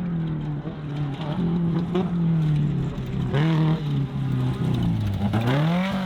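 Class 10 off-road race car engine under throttle: its note sags and wavers lower for several seconds, then climbs steeply as it revs up near the end.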